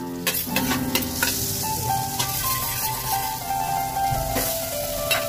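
Chopped garlic sizzling in hot oil and butter in a stainless steel pot, with a few sharp clicks of a metal ladle stirring it.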